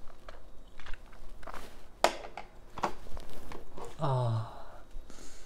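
Mouth sounds of a man eating ramen noodles: chewing and smacking with a few sharp clicks, then, about four seconds in, a short open-mouthed vocal exhale that falls in pitch.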